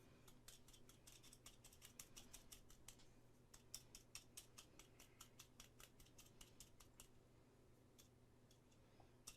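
Faint, quick clicking and snipping from small handwork at a desk, several clicks a second, over a low steady hum.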